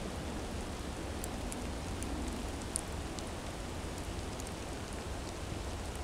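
Snowy forest ambience: a steady rushing hiss over a low rumble, with a few faint light ticks between one and three seconds in and one sharper tick near the three-second mark.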